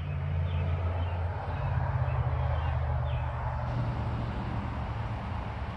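A motor vehicle's engine running with a steady low hum, growing louder as it begins.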